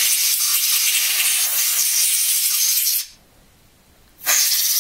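Compressed air hissing from a nozzle as it is blown into the switch wells of a TRS-80 Model 1 keyboard to clear dried residue off the key contacts. One steady blast stops about three seconds in, and a second starts about a second later.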